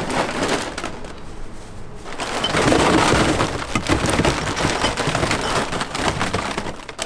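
Empty plastic drink bottles crinkling and clattering as a bag of them is tipped into a recycling bin full of bottles. The tumbling is loudest about three seconds in.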